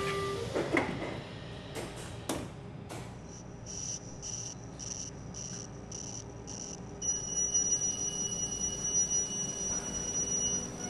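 Commuter train's door warning: a few sharp knocks, then a high beeping about twice a second for roughly four seconds, giving way about seven seconds in to a steady high-pitched tone. It signals that the doors are closing before departure.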